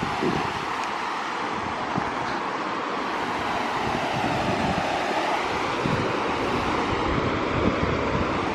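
Steady, even rushing noise outdoors with no distinct events, like distant road traffic or wind.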